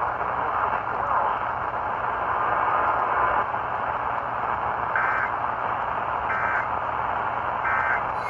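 Steady hiss of noisy, band-limited radio reception. About five seconds in come three short squawks of EAS digital data, each about 1.4 seconds apart: the SAME end-of-message bursts that close an emergency alert.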